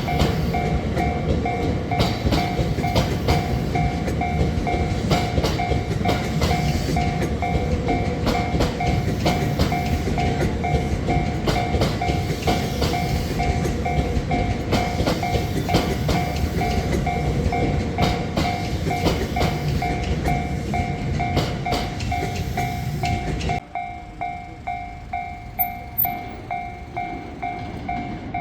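A train rumbling over a Japanese level crossing with repeated wheel clacks, while the crossing's warning bell rings in a steady repeating chime. The train noise drops away abruptly about 24 seconds in, leaving the bell ringing on its own.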